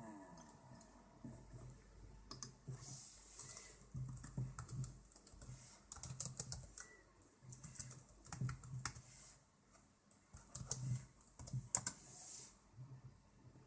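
Typing on a laptop keyboard: irregular runs of quiet key clicks with short pauses between them.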